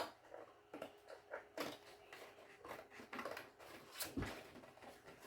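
Scissors cutting through cartridge paper: irregular snips with paper rustling, and a soft thump about four seconds in.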